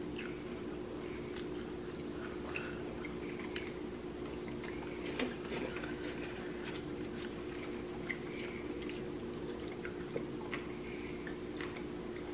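People eating noodle soup: scattered slurps and sips of noodles and broth, with spoons and chopsticks clicking against ceramic bowls, over a steady low hum.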